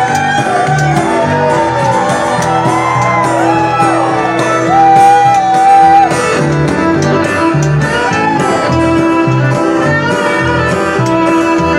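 A fiddle plays a sliding lead melody, holding one long loud note about five seconds in, over steadily strummed acoustic guitar, heard live through the PA.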